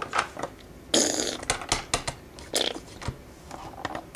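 Scattered light clicks and taps, with two short hissing bursts about a second in and again near two and a half seconds.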